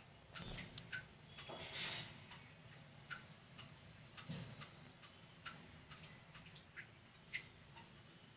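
Faint background sound: a steady high-pitched hiss with scattered, irregular small ticks and clicks.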